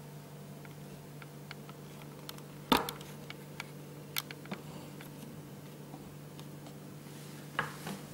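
A steady low hum under scattered light clicks and taps, with a louder knock about three seconds in and another near the end.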